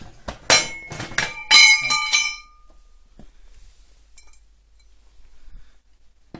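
Welded steel angle iron clanking and ringing as it is turned over: a quick run of metal knocks in the first couple of seconds, the last few ringing on briefly.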